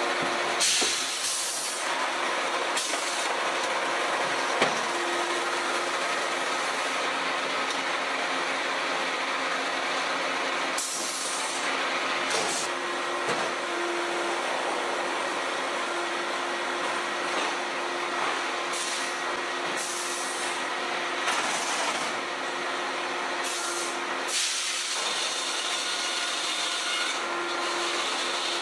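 Sawmill board-handling machinery, conveyors and chain transfers, running steadily with a constant hum, broken every few seconds by short bursts of high-pitched noise.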